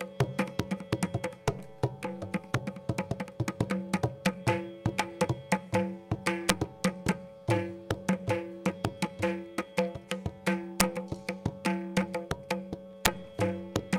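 Mridangam played in a fast, continuous run of hand strokes: crisp ringing strokes on the tuned right head, with deeper bass strokes on the left head coming in at intervals.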